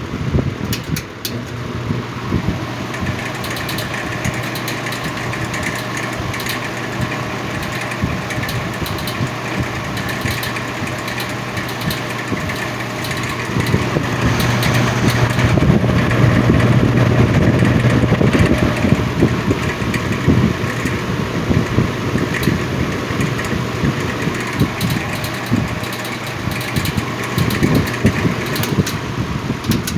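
1950s Lakewood X2 box fan's electric motor running with a steady hum and a constant rattling vibration, which the owner puts down to loose windings in the motor's stator. It grows louder about halfway through, then settles back.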